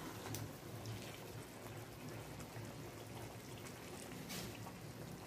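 Faint sizzling of chicken and potato curry cooking in an aluminium kadhai, with a soft scrape of a metal slotted spatula about four seconds in.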